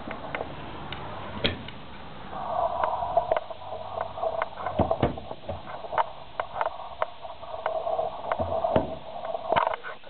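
Wooden cabinet doors being opened and closed, giving a series of clicks and knocks. A steady whine starts about two seconds in and stops near the end.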